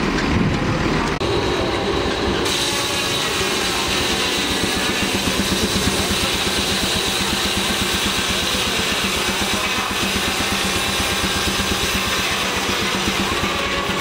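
Large belt-driven circular sawmill blade cutting through an eastern red cedar log: a steady rasping whine that sets in about two and a half seconds in, over the fast, even beat of the machinery driving it.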